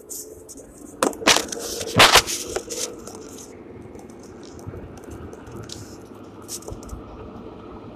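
Handling noise of a phone being set on a car dashboard: a few loud knocks and rubbing scrapes over the first three seconds or so, followed by the steady low noise of the car's cabin while driving.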